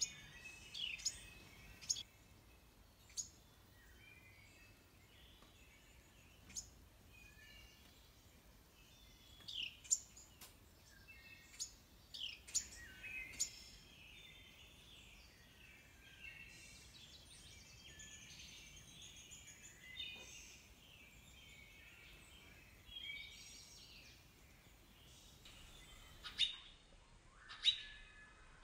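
Carolina wrens calling: short, sharp chip notes scattered irregularly, with a stretch of softer, busier twittering in the middle.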